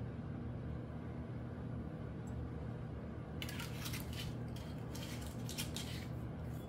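A steady low hum, then from about halfway a run of short, light clinks and rattles from a glass gin bottle being handled.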